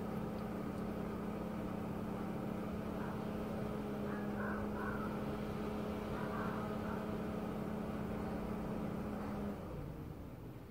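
A car engine idling with a steady hum, which cuts off about nine and a half seconds in.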